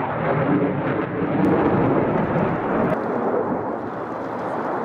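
Fighter jet's engine noise during an airshow display pass: a loud, steady rumble whose higher hiss fades about three seconds in.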